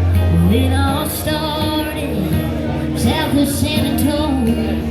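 Live country band playing a song's intro: strummed acoustic guitar and bass under a wavering lead melody line.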